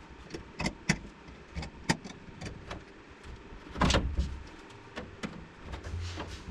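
Irregular sharp clicks and knocks of a C-clamp and dimple dies being handled and tightened against thin aluminum sheet, with a heavier thump about four seconds in.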